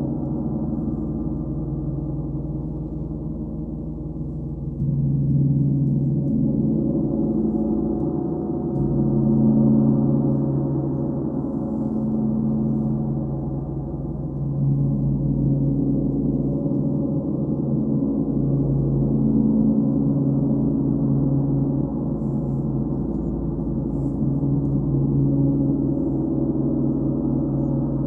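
Large engraved gong played with a pair of soft felt mallets, giving a continuous deep humming wash of overlapping tones. The sound swells and eases every few seconds, without sharp strikes.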